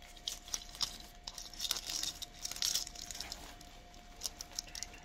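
Rustling and crackling of fir and holly foliage handled by gloved hands while a decoration is wired into a Christmas garland, in irregular bursts that are busiest around the middle.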